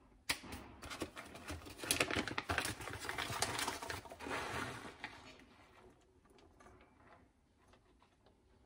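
Plastic bag of grated cheese crinkling as it is shaken out over a baking dish, with the cheese scattering onto the dish in a patter of small crackles. It stops about five and a half seconds in, leaving near silence.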